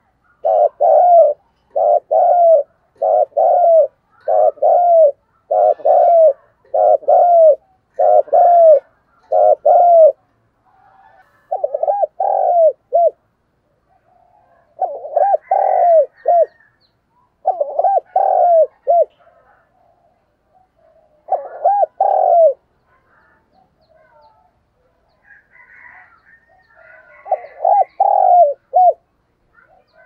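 Spotted dove (chim cu gáy) cooing, the calling of a decoy bird meant to draw in wild doves. It gives short phrases of a few coos, about one a second for the first ten seconds, then with longer pauses between them. Faint higher chirps come in now and then.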